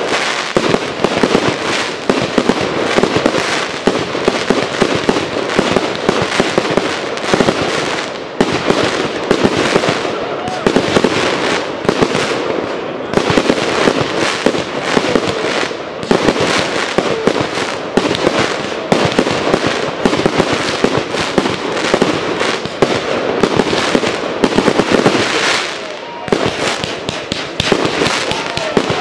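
Aerial fireworks bursting in a dense, unbroken barrage of rapid bangs and crackle.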